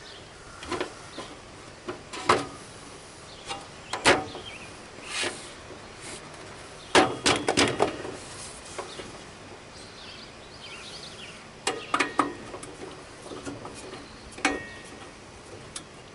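Scattered clicks and knocks of hand-work on a lawn tractor hood and grille as screws are started, with a quick run of clicks about seven seconds in and another group near twelve seconds.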